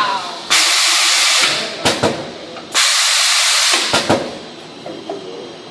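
An automatic machine in a bandsaw blade shop, running by itself after being started with a push of a button, gives off two loud bursts of hissing, each about a second long. Sharp clicks follow each burst, and the machine settles quieter near the end.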